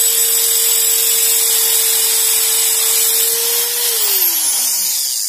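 Electric drill spinning a homemade mini abrasive cut-off disc against a metal tube, a loud grinding hiss over a steady motor whine. About four seconds in the disc comes off the metal and the whine falls steadily in pitch as the drill slows.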